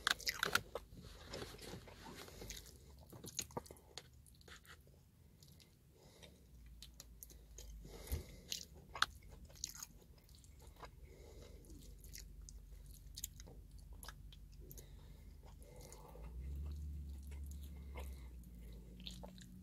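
A person chewing food close to the microphone, with many short wet mouth clicks and smacks. Near the end a low rumble swells for a couple of seconds.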